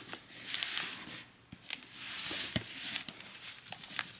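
Soft rustling of handling, with a few sharp light clicks and taps.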